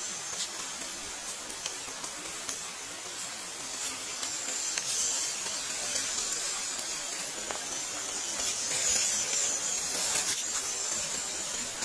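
A 1/12-scale MN-91 RC crawler's small electric motor and gearbox whirring as it drives along a trail, a high hissing whine that grows louder from about four seconds in as it comes close, with scattered faint clicks.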